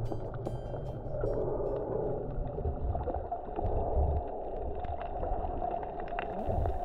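Muffled underwater water noise picked up by a camera held below the surface while snorkeling: a steady low rumbling wash with a few faint clicks.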